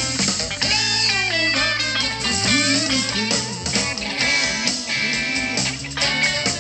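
A blues band playing live: an electric guitar leads with bending notes over drums and electric bass.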